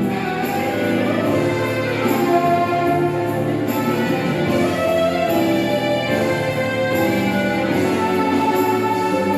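Instrumental interlude of a Portuguese-language gospel song: sustained strings and guitar over a steady bass, no singing.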